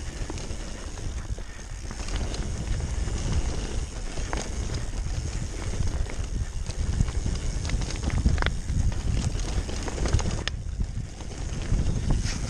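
Mountain bike descending rough singletrack: knobbly tyres rolling over dirt and loose stones, with rapid irregular knocks and rattles from the bike over bumps and a steady low rumble.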